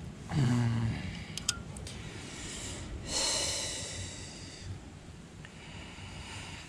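A man's short, low voiced hum, a light metallic tick from a stainless camping mug, then one long audible breath through the nose or mouth lasting under two seconds.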